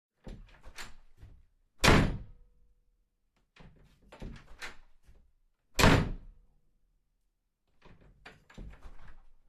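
A door handled over and over: its handle and latch click and rattle, then the door shuts with a loud thud. This happens twice, about four seconds apart, and a third round of latch clicks comes near the end.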